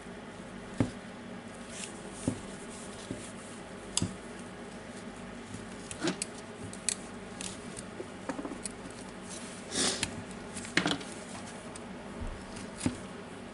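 Irregular small clicks, taps and a brief rustling scrape of hands working motor wires and plastic parts into the opened housing of a DeWalt brushless hammer drill, with a screwdriver tip pushing the wires near the end. A faint steady hum sits underneath.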